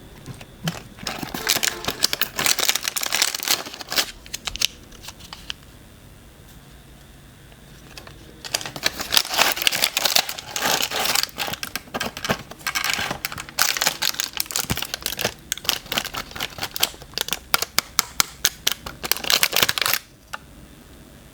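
Packaging being unwrapped and handled: crinkling and tearing with quick clicks, in a burst of about four seconds, a short pause, then a longer stretch of about twelve seconds that stops a second before the end.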